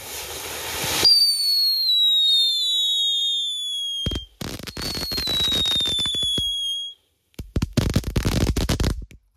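Small ground fountain firework burning: a spray of hissing, then a high whistle that falls slowly in pitch, a second falling whistle with crackling, and a final burst of crackling hiss. The sound stops abruptly between parts.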